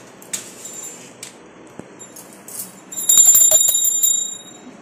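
Hand-held puja bell rung rapidly for about a second and a half, starting about three seconds in, as is done during aarti. A few faint clicks come before it.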